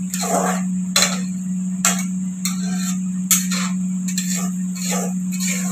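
Metal spatula scraping and stirring thick masala paste in a metal kadhai, a sharp stroke every half-second to second, while the paste fries in oil with a steady hiss under a steady low hum.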